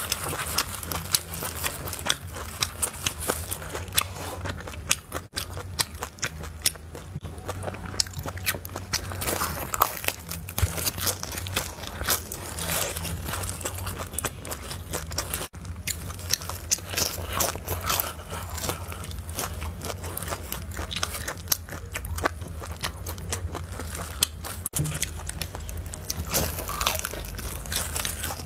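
Close-up eating sounds of pan-fried pork large intestine being bitten and chewed: a dense, irregular run of sharp clicks and crunches, over a steady low hum.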